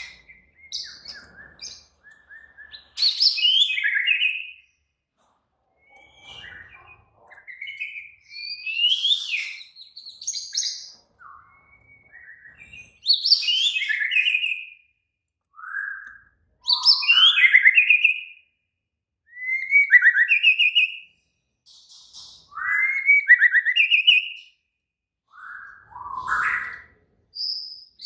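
White-rumped shama (murai batu) singing an aggressive, agitated song used as a lure to provoke other shamas. It sings loud phrases a second or two long, made of fast trills and gliding whistles, with short pauses between them.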